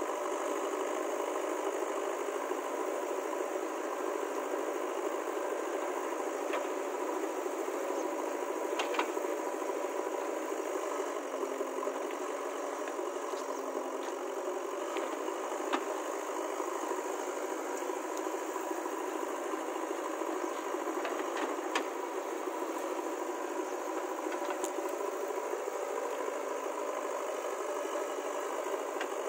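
Diesel engine of a heavy earth-moving or farm machine running steadily, with a rattle and a few sharp metallic knocks now and then.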